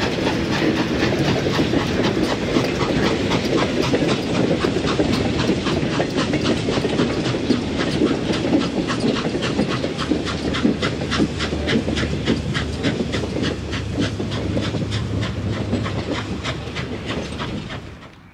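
Norfolk and Western Class J 4-8-4 steam locomotive 611 working up a gentle grade: a quick, even beat of exhaust chuffs over a low rumble. It drops off sharply near the end.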